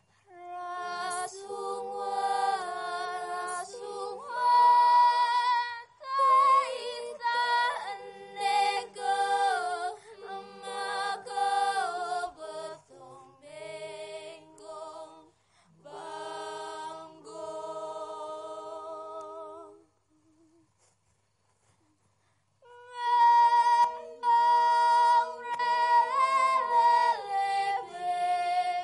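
Unaccompanied singing by several voices together in harmony, with long wavering held notes. The singing breaks off for about two seconds past the middle, then starts again.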